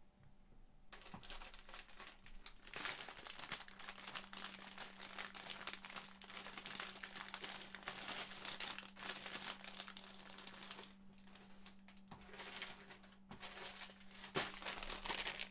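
Rummaging through a stash of loose plastic Lego pieces while searching for a spare brick: a dense run of clicking and rustling that starts about a second in, with a couple of short lulls near the end.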